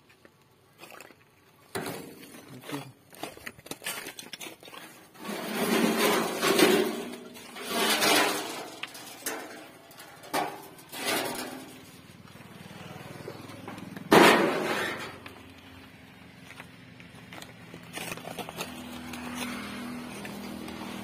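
Crunching and clinking of broken clay roof tiles and burnt debris underfoot, irregular and scattered, with one loud sharp knock about fourteen seconds in.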